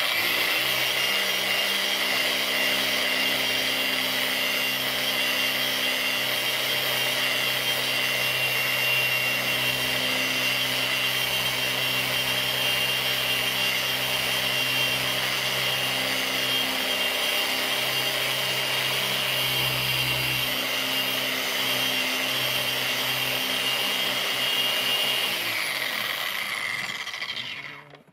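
Griot's Garage random-orbital car polisher running steadily with a motor whine, its pad buffing a glass stovetop with cutting cream to work out brown burner stains. Near the end it is switched off and winds down, the whine falling in pitch.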